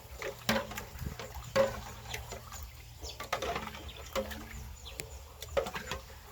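Dishes being washed by hand in a basin: water splashing and sloshing, with irregular clinks and knocks of utensils against each other.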